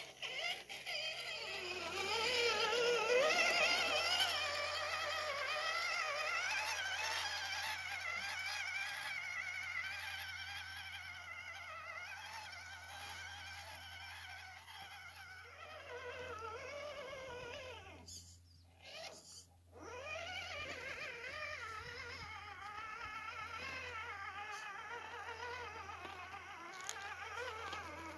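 RC crawler's electric motor and geared drivetrain whining, its pitch rising and falling continuously with the throttle as the truck crawls over rock. The whine dips out briefly about two-thirds of the way through.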